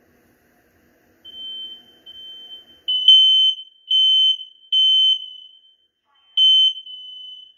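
Smoke alarms beeping in a test: a high, piercing tone in beeps about half a second long. The loud beeps come in a group of three, then a pause before the next group, the temporal-three pattern of a fire alarm. Fainter beeps at the same pitch sound under and between them.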